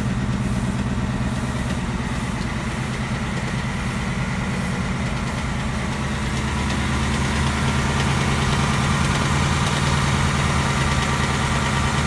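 Ford Mustang GT's 5.0 direct-injection Coyote V8 idling steadily, a little louder in the second half. It makes the noise the owner recognizes as the same sound his own car makes, which the dealer takes for normal on new cars.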